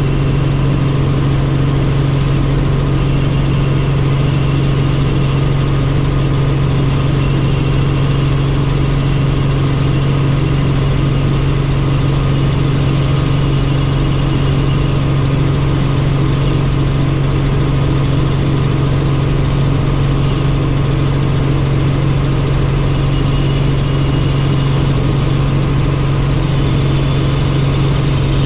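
Helicopter running steadily in flight: a loud, unchanging low hum with fainter higher tones over it.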